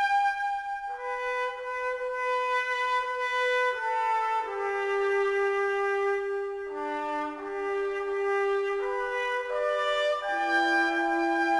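Slow instrumental music of long held notes, several parts sounding together and changing chord every second or two.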